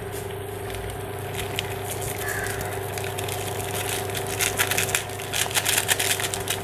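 Foil seasoning sachet crinkling as it is torn open and shaken over a pan of simmering noodles. The crackling grows thick from about halfway, over a steady electrical hum from the induction cooktop.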